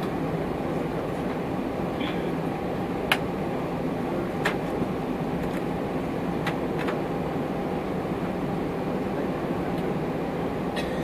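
Airbus A320 cabin noise while taxiing: a steady low rumble from the CFM56 engines at idle and the rolling airframe. A few sharp clicks or knocks cut through it, the loudest about three seconds in.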